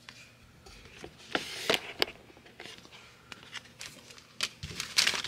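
Light handling sounds of a cardboard toy box and its paper contents: a few sharp clicks and taps in the first two seconds, then paper rustling with small clicks about four and a half seconds in.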